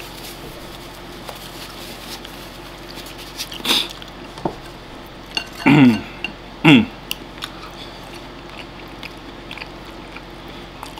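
Eating at a table: chopsticks clicking lightly against a ceramic rice bowl, with chewing. Two short, loud pitched sounds that fall in pitch come about two-thirds of the way through.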